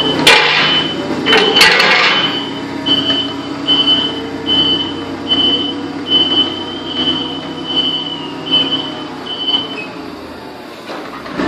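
Caterpillar forklift driving with its engine running and its warning beeper sounding a high, even beep about once every three-quarters of a second; the beeping stops about ten seconds in. Two loud clattering knocks come near the start, about a second and a half apart.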